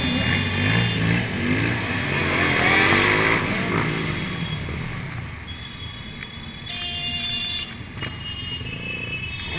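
Motorcycle engine on the camera's own bike, rising and falling in pitch over the first few seconds, then running quieter as the bike slows.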